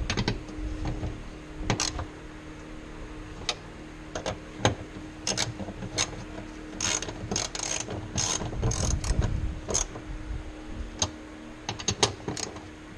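Irregular metallic clicks and clanks of hand tools working on a diesel fuel filter, bunched together about halfway through, over a faint steady hum.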